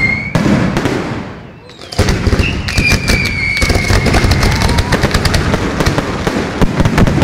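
Fireworks display: shell bursts and crackling with a high whistle, fading away about a second in, then a sudden rapid barrage of bangs and crackles from about two seconds in, with another high whistle over it.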